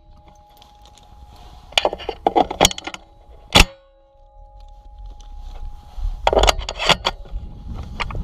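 Bursts of rapid jangling clatter about 2 seconds in and again near the end, with a single sharp knock in between and a faint steady ringing tone lingering in the gaps.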